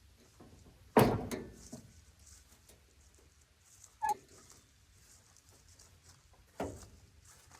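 Three separate knocks: a loud one about a second in, a shorter one with a brief squeak just after four seconds, and another about six and a half seconds in.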